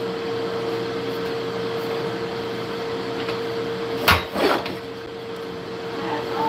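A metal camera stand being handled: two sharp knocks about half a second apart, about four seconds in, as it is picked up and set upright. A steady hum runs underneath.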